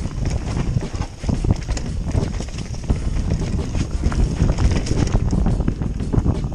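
Mountain bike riding fast down a dirt trail: tyres rumbling over the ground, with a constant clatter of knocks and rattles from the bike as it bounces over bumps.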